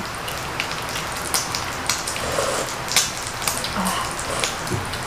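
Pork belly sizzling on an electric grill plate: a steady crackling hiss with scattered pops of spitting fat.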